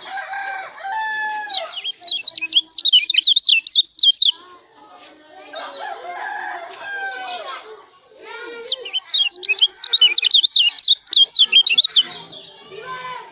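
Kecial lombok songbird singing two loud runs of rapid, high-pitched warbling notes, the first about a second and a half in and the second past the middle. Lower-pitched fowl calls, like a rooster crowing, fill the gaps between them.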